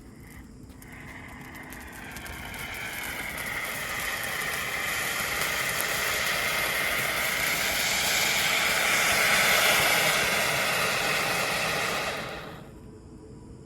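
Hand-held tezutsu-style tube firework loaded with a Dragon fountain firework, spraying sparks with a rushing hiss. It crackles at first, builds steadily for several seconds, is loudest near ten seconds in, then cuts off abruptly as the charge burns out.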